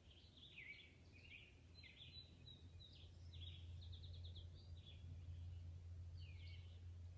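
Faint birdsong: small birds chirping, with one rapid trill of evenly repeated notes about halfway through. A low steady hum sits underneath and grows a little louder a couple of seconds in.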